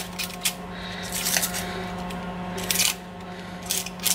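Dry, papery brown-onion skin crackling and tearing in short crisp bursts as it is prised off the onion with a knife tip and fingers.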